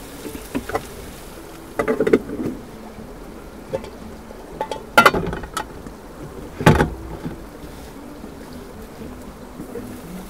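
Metal cookware clattering on a camping gas stove: a pan and its metal lid knocked about half a dozen times, loudest about five and seven seconds in, over the steady sizzle of corned beef hash frying in the pan.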